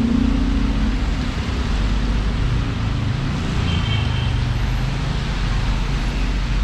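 City street traffic: cars and other vehicles passing in a steady rumble, with the tail of a car horn right at the start and a brief high squeal about four seconds in.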